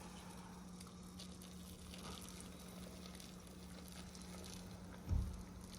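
Water heating in a pot, a faint steady hiss, over a steady low hum; a soft thump about five seconds in.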